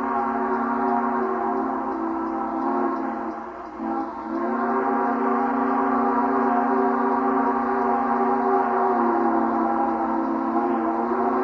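Chime steam whistle of a Delaware & Hudson K62 class 4-8-4 steam locomotive, blowing long drawn-out blasts of several notes sounding together. It breaks off briefly about four seconds in, then sounds again with the pitch sliding up slightly as it reopens.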